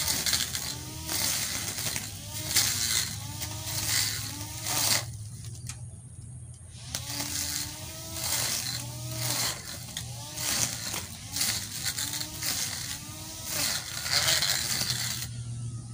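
Cordless electric grass trimmer with a metal cutting blade slashing through grass in quick back-and-forth sweeps, about two strokes a second, its whirr rising and falling with each sweep. The cutting lets up briefly about five seconds in, then stops again just before the end.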